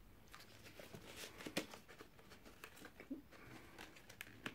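Faint, scattered crinkles and ticks of plastic wrapping being picked at and peeled off a rolled poster pack by hand.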